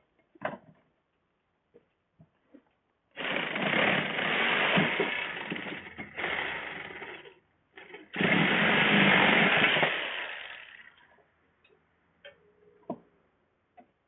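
Handheld power tool run in two bursts of about four and three seconds, with a short pause between, while the condensing unit is stripped for scrap. Light clicks and knocks of handled metal come before and after.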